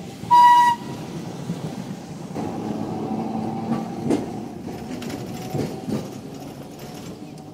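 A tram running along a city street: a steady low rumble of the car on its rails, with a few sharp clacks of the wheels over rail joints. A short, high horn beep sounds about half a second in.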